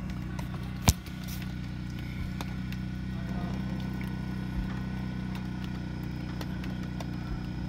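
A steady low machine-like hum, with a sharp click about a second in and faint, irregular taps of a knife cutting red peppers on a plastic cutting board.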